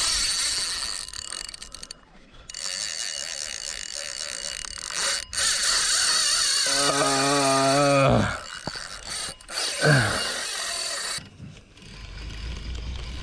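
Fishing reel drag buzzing and clicking in long runs as a hooked shark pulls line off, with short pauses between runs. A man's drawn-out groan that falls in pitch comes about seven seconds in.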